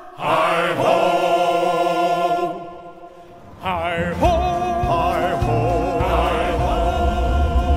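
Soundtrack music with a choir singing long held notes. It breaks off about two and a half seconds in, comes back a second later, and has a deep low rumble under it from about four seconds in.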